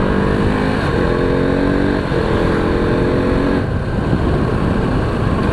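KTM RC 200's single-cylinder engine accelerating up through the gears: its note rises in pitch three times, each run cut off by a gear change, over steady wind and road rush.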